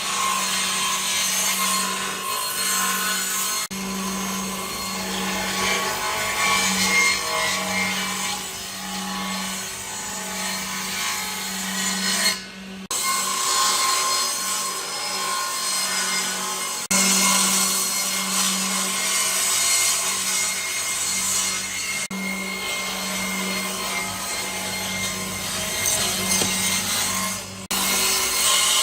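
Electric power tool working wood, its motor running steadily under load with a constant hum beneath the noise of the cut, broken by a few short pauses.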